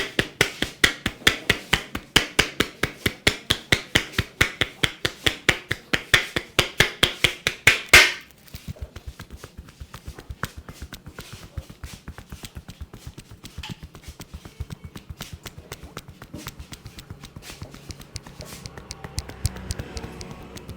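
Hands striking a person's body in a percussive massage: loud, rapid strokes at about five a second, ending on one harder strike about eight seconds in, followed by quieter, faster tapping.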